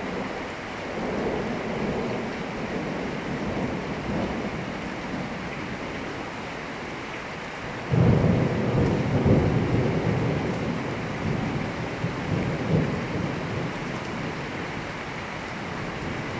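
Thunder rumbling over steady rain. A first rumble comes about a second in, then a louder peal starts suddenly about eight seconds in and rolls on for several seconds with a few sharper cracks.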